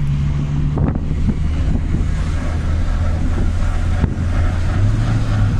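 Turbocharged Honda D16 four-cylinder engine and road noise heard from inside the Civic's cabin while driving. The engine note drops about a second in, holds steady, then rises a little near the end.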